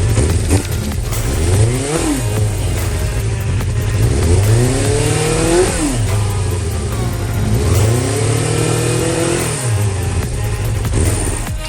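Suzuki Bandit 400's inline-four engine, running on its rebuilt carburettors, revved three times: the pitch climbs as the throttle opens and drops back sharply each time it is released.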